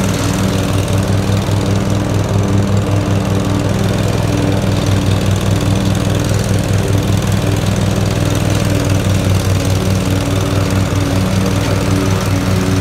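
Cub Cadet ZTS2 zero-turn riding mower's engine running steadily at an even speed as the mower moves across the lawn.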